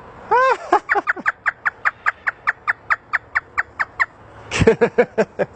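African grey parrot mimicking a hysterical laugh: one rising-and-falling call, then a fast, even run of about twenty short notes, roughly six a second. A few louder calls follow near the end.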